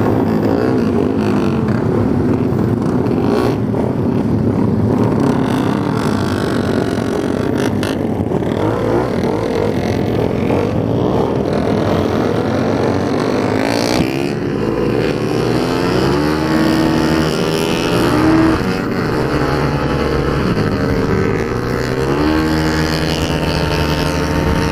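Onboard sound of a tuned Yamaha Mio scooter with a 230 cc four-valve engine, running as it rolls out and accelerates onto the track. From about halfway through, the engine note rises and falls again and again as the throttle is worked.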